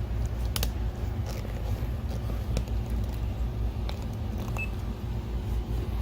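NEC VE281X DLP projector running with its new lamp lit, its cooling fans giving a steady low hum, with a few light clicks spread through it.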